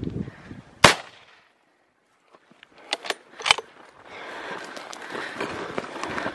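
A single loud gunshot about a second in, fired at a caracal, then two fainter sharp cracks a couple of seconds later. From about four seconds on, hurried footsteps and rustling through dry grass.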